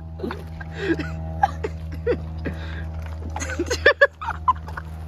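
Short snatches of voices over a steady low hum.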